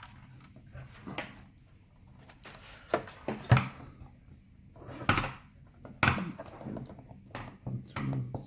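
Scattered small clicks, taps and knocks of hands handling the laptop's plastic lid and LCD panel while working the display cable connector loose, with the loudest knocks about halfway through.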